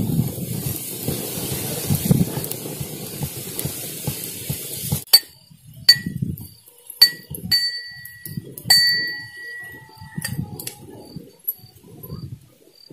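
Roasted peanuts being pounded with a pestle in a small brass pot: repeated dull thuds. From about five seconds in come sharp metallic clinks, several of which ring on briefly.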